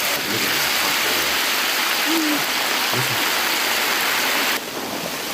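Marinated chicken deep-frying in a large pan of hot oil: a loud, steady sizzle. The sizzle drops in level and changes character about four and a half seconds in.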